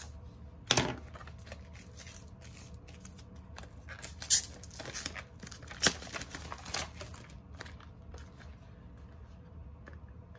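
A retail cardboard box and its plastic packaging being opened by hand: tearing and crinkling, with scattered sharp clicks and knocks.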